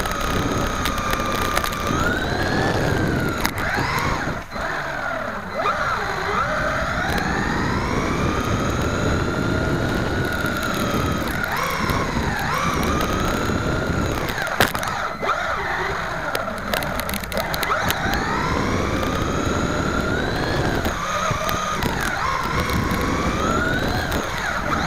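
WLtoys A979 1/18-scale 4WD RC truck running, heard from a camera mounted on the truck. Its electric motor and gears whine, the pitch rising and falling again and again as it speeds up and slows, over a steady rumble of the wheels on the hard floor. A single sharp knock comes about fifteen seconds in.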